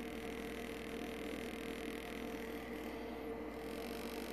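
Steady faint hum with a light hiss underneath, holding one even tone with no clicks or tool strokes.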